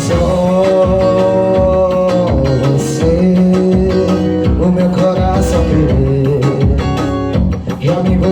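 Live piseiro band music: a held, gliding lead melody over a steady bass-drum beat, with no lyrics sung.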